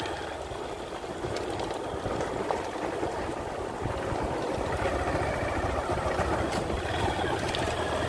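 Motorcycle engine running as it rides along a bumpy dirt track, a steady low rumble under wind rush, a little louder from about halfway through.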